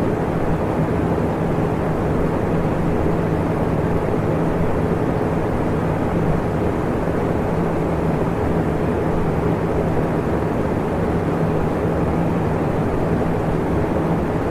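Electric fan running steadily: an even rush of moving air with a steady low motor hum underneath.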